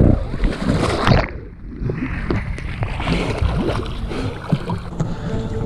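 Lake water splashing and sloshing around an action camera held at the surface, with many small knocks and wind on the microphone. The sound goes muffled for a moment about a second in.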